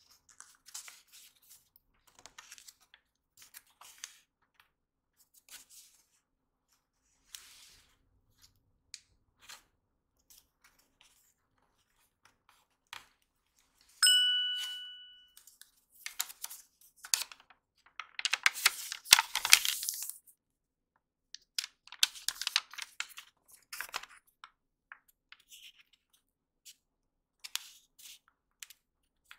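Origami paper being handled, folded and creased by hand: short scattered rustles and crinkles, with a denser two-second stretch of creasing and rubbing a little past the middle. About halfway through, a single chime-like ding rings out and fades.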